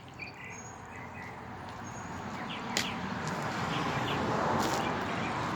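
A passing vehicle: a steady rush that swells to its loudest about four and a half seconds in and then eases off. A few short bird chirps and a single sharp click, about three seconds in, sound over it.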